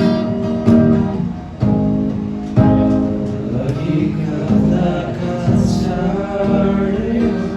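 Background music: an acoustic guitar strumming with a singing voice.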